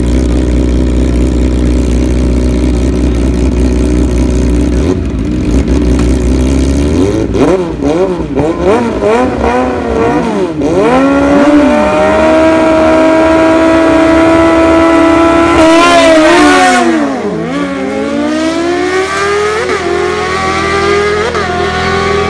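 Superbike engines idling at a drag-race start line, then one is blipped up and down and held at high revs for several seconds. About 16 seconds in it launches: a short rough burst, the pitch dips and then climbs again, broken twice by upshifts.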